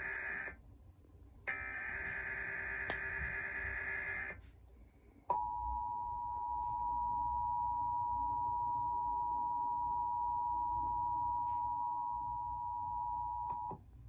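Emergency Alert System broadcast played from a television. Two short bursts of buzzy, screeching SAME header data come first, the first cut off about half a second in and the second running about three seconds. Then the steady two-tone EAS attention signal is held for about eight seconds, the alarm that opens a Required Monthly Test.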